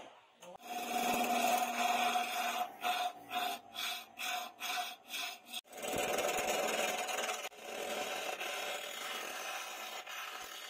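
Wooden blank spinning on a motor-driven wood lathe, shaved by a hand-held turning chisel: a continuous scraping cut. Part way through it breaks into a run of short strokes, about two or three a second, then runs steady again.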